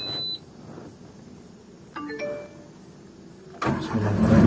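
Hydraulic excavator being started from the cab: a short high beep as the key comes on, a few short chime tones from the cab monitor about two seconds in, then the diesel engine starts a little after three and a half seconds and settles into a steady, loud low run, started to be warmed up.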